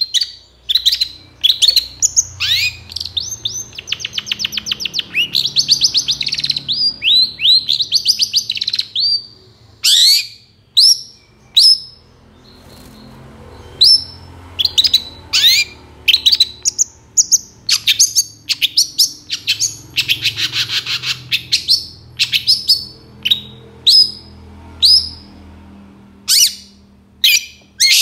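Long-tailed shrike (cendet) singing in a fast run of sharp, falling notes, with rapid chattering trills a few seconds in and again about two-thirds of the way through, and a brief pause near the middle.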